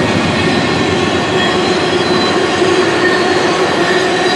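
Freight train tank cars rolling past close by: a loud, steady rumble and rattle of steel wheels on rail, with a thin, high wheel squeal running over it.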